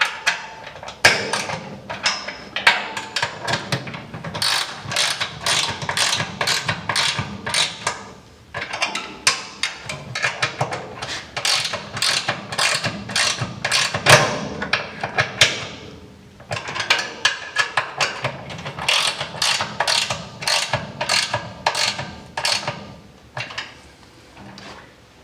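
Hand ratchet wrench clicking in quick runs of strokes as bolts and nuts are tightened down, with short pauses between runs.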